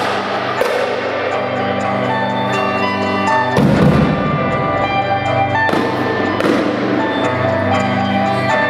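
A large drum hanging on a rope and swinging like a pendulum, struck with a stick about four times as it passes. The loudest, deepest hit comes about three and a half seconds in, and each hit rings on in the big empty hall over sustained electric guitar notes played through a small amplifier.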